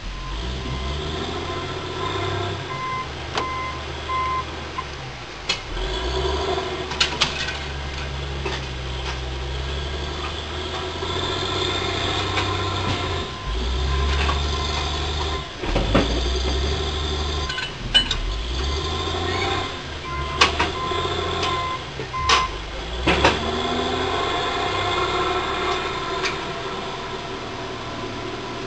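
Excavator's diesel engine running under changing hydraulic load while its Waratah saw/delimber head works, with scattered sharp knocks and cracks. Short runs of beeping come twice, a few seconds in and again about two-thirds of the way through.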